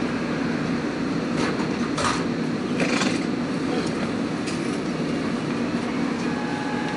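Interior running noise of a SEPTA M-4 Market-Frankford subway car pulling away after its doors close: a steady low rumble with a few sharp clicks and knocks early on, and a faint steady whine coming in near the end.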